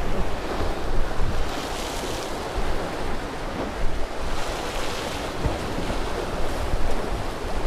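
Sea surf washing and breaking against the rocks below, with wind buffeting the microphone in a low rumble.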